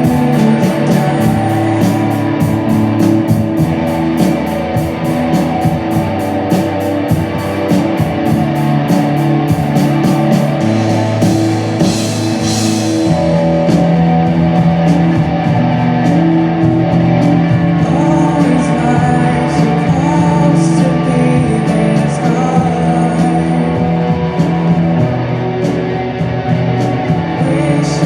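Rock band playing a song: electric guitar, bass and drum kit with a singer, with fast, even cymbal strikes through roughly the first half.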